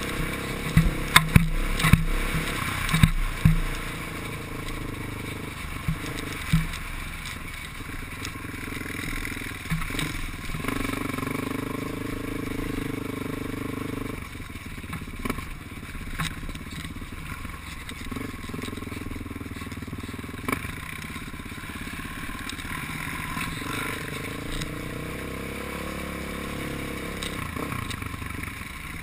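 ATV engine running as the machine is ridden over a rough, rocky dirt trail, its revs rising and falling. Sharp knocks and rattles from the quad jolting over rocks, most of them in the first few seconds.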